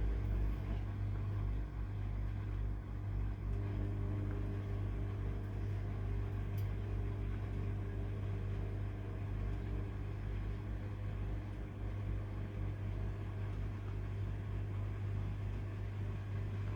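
Steady low engine hum with a constant pitch, with a faint click or two.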